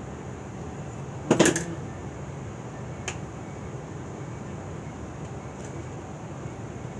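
A short clatter of small tools or metal parts being handled on a workbench about a second and a half in, followed by a couple of faint ticks, over a steady low hum of room noise.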